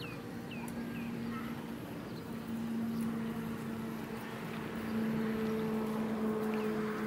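A small engine running steadily in the distance, a low drone that grows a little louder partway through, with a few short, falling bird chirps in the first second.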